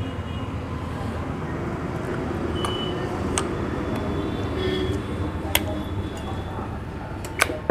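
Steady low background rumble with a few sharp metallic clinks, the loudest near the end, as a power-steering pinion is handled and fitted into its valve housing.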